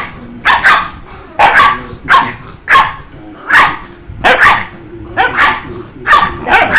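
Dog barking repeatedly: a dozen or so short, sharp barks, some coming in quick pairs.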